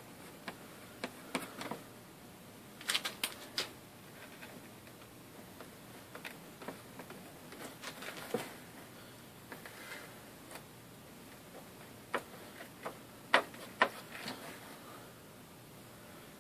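Hands handling a paper gasket and a tube of gasket sealer on a sheet of cardboard: scattered light clicks and taps with soft rustling, a quick cluster a few seconds in and two sharper taps late on.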